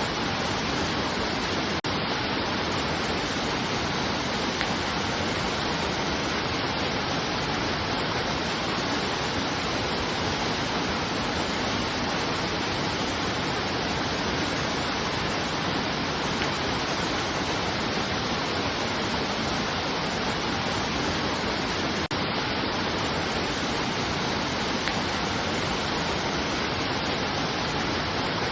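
Steady, unbroken rush of water, like a waterfall or fast stream, with an even hiss that does not change.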